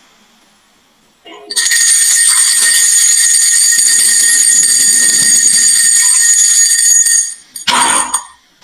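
Marbles rolling down a marble run: a loud, steady, high ringing rolling sound that starts about a second and a half in and lasts some six seconds, then a short clatter near the end as marbles land.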